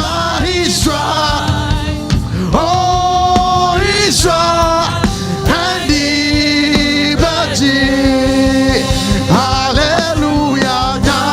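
Gospel praise music: singers over a band with a steady beat.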